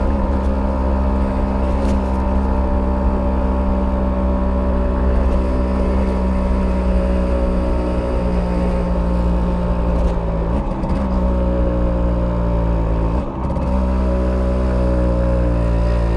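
Stock 1991 Simson S51B's 50cc two-stroke single-cylinder engine running steadily under way. There are two brief breaks in the note about 11 and 13 seconds in, and the pitch eases down near the end.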